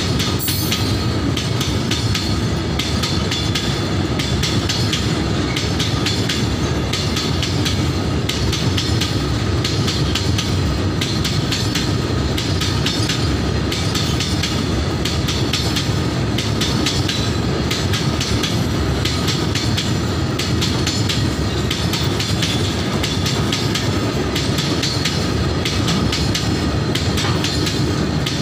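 Freight train of steel hopper and box wagons rolling steadily past close by: a continuous rumble with a rapid clickety-clack of wheels over the rail joints.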